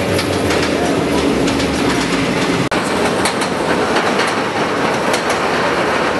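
Steel roller coaster train running on its track: a steady rumble with rapid clattering, broken by a momentary dropout about two and a half seconds in.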